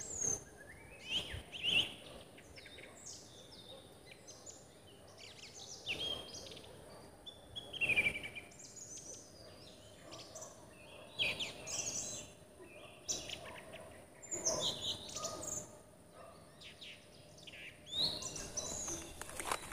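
Garden birds chirping and singing: short high calls and quick gliding notes scattered throughout, a few louder than the rest, over a quiet outdoor background.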